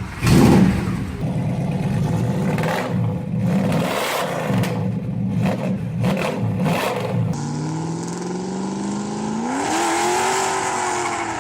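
Ford Mustang Boss 429's 7-litre V8 running with sharp revs for about seven seconds. Then, in a separate recording, the engine note climbs steadily in pitch as it accelerates and holds near the end.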